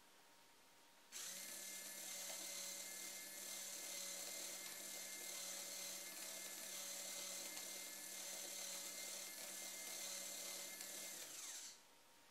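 MG996R 360-degree continuous-rotation servo spinning under Arduino control: a steady whine of its small DC motor and metal gear train. It starts about a second in and runs for about ten seconds, then its pitch drops briefly as it winds down and stops near the end.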